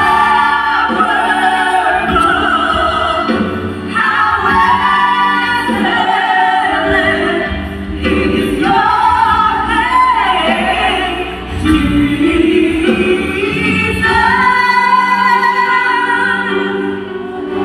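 Music with singing: sung phrases with held notes, a female voice and choir, broken by short breaths about every three to four seconds.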